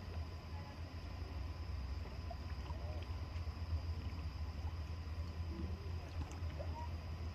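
Harbour ambience: a steady low rumble, with a thin steady high whine and a few faint short chirps.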